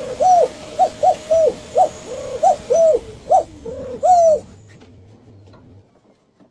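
A voice singing a playful string of short 'wah' notes, about ten in quick succession, each rising and falling in pitch. It stops about four and a half seconds in.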